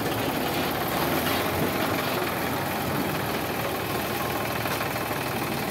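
Sonalika DI 745 III tractor's three-cylinder diesel engine running steadily at idle.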